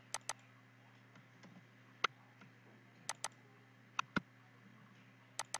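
Sharp clicks of a computer mouse and keyboard, about nine in all and several in quick pairs, as a CAD drawing is edited. A faint low steady hum runs beneath them.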